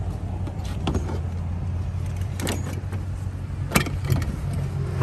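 A vehicle engine idling with a steady low hum. Over it come a few sharp clanks and rattles as a cooler and its hitch-mounted rack are handled, the loudest a little before the end.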